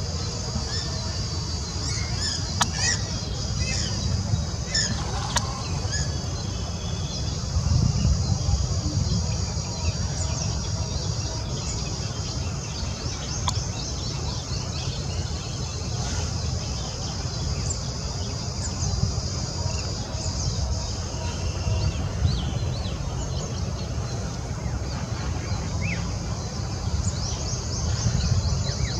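Outdoor bird chorus: many small birds chirping and calling, with fast repeated trills about halfway through and again near the end, over a steady low rumble.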